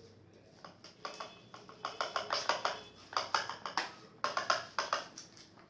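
Slime being stirred and squished after dye is added: a run of quick, sticky clicks and squelches, louder and denser from about two seconds in.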